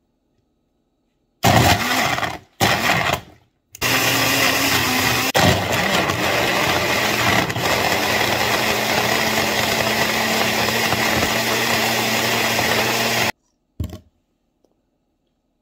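Personal bullet-style blender crushing ice into a smoothie. Two short pulses are followed by a steady run of about nine seconds that stops abruptly.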